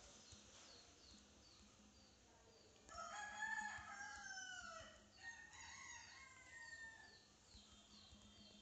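A rooster crowing once, starting about three seconds in, a drawn-out call that falls in pitch at the end, followed by weaker calls. Faint short high chirps repeat about twice a second throughout.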